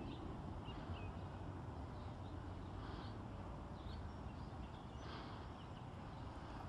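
Scattered short, faint bird chirps over a steady low background rumble.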